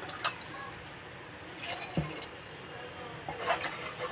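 Water sloshing in an aluminium pressure cooker of curry as it is added and stirred in with a steel ladle. A few sharp clinks of the ladle against the pot, the clearest about halfway through.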